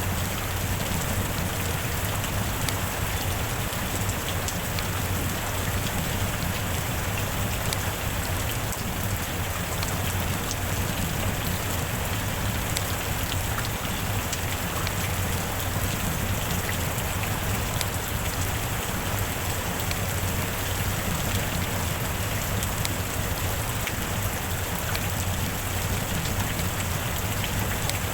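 Heavy rain falling steadily, a constant even hiss with faint individual drop ticks scattered through it.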